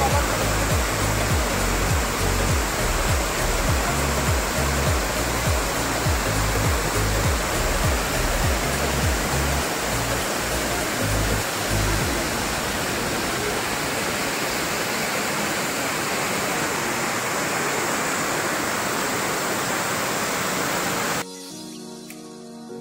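Waterfall pouring over rock into a pool: a loud, steady rushing of water, with background music's bass notes under it for the first half. Near the end the water sound cuts off abruptly, leaving quieter music.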